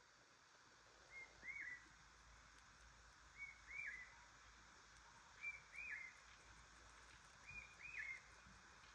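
A bird calling four times, evenly about two seconds apart, each call a short note followed by a higher arched one, faint over a steady background hiss.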